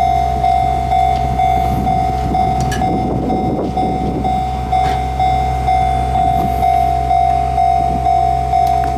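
Level-crossing warning bell ringing steadily, one tone about twice a second, over a steady low rumble.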